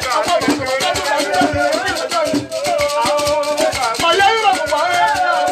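A man singing a Bété tohourou chant into a handheld microphone, his voice bending and wavering, over rattles shaking in a steady, dense rhythm.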